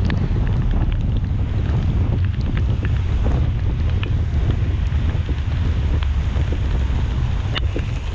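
Car driving on a wet road: a steady low rumble of road and wind noise, with a few faint sharp ticks.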